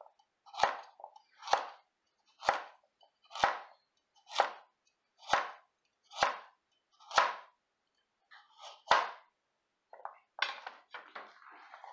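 Chef's knife slicing a carrot into rounds on a plastic cutting board: an even series of about ten cuts, roughly one a second, each ending in a sharp knock on the board. Near the end comes a short run of lighter, irregular clicks and scrapes as the cut pieces are handled on the board.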